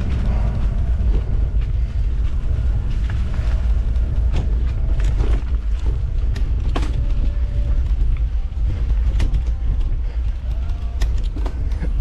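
Mountain bike riding over a rough trail: a heavy, steady rumble of wind and ride noise on the microphone, with scattered rattles and knocks from the bike.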